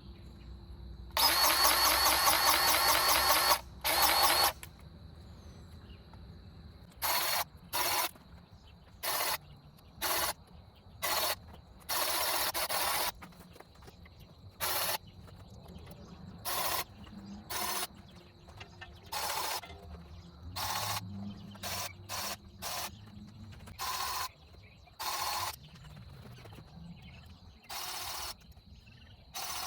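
Grease gun pumping grease into a SANY SY26U mini excavator's grease fittings in a string of short trigger bursts, about twenty of them. The first burst is the longest and loudest, about two seconds.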